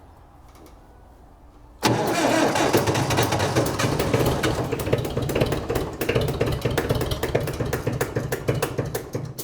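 1963 International TD5 crawler's diesel engine being cranked by its starter after glow-plug preheating, starting about two seconds in. It churns loudly for about seven seconds and then stops suddenly.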